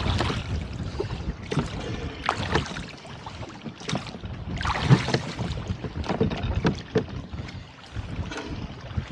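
Rowboat under way into a gusty headwind: water splashing irregularly against the hull and oars, the loudest splash about five seconds in, with wind buffeting the microphone.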